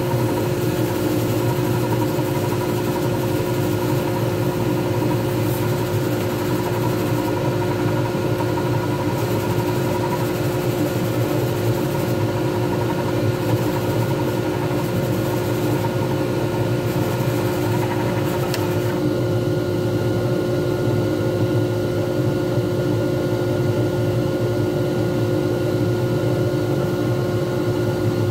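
Small lathe running at a steady speed, its motor giving a constant whine and hum while it spins a resin pen blank. A hand-held sanding pad and then a paper towel rub against the spinning blank with a hiss, which stops about two-thirds of the way through, leaving the lathe running alone.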